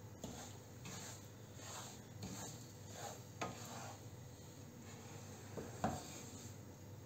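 Wooden spatula stirring and scraping semolina in ghee across a non-stick frying pan, in faint repeated strokes, with one louder stroke about six seconds in. The semolina is being slowly roasted in the ghee on low heat until light brown.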